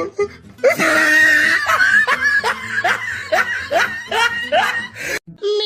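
A person laughing: a burst of laughter running into a string of short repeated laughs, a few a second, that cuts off suddenly near the end.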